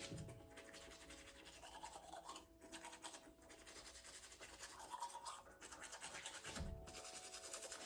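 Faint scrubbing of a toothbrush on teeth, a steady run of quick back-and-forth strokes.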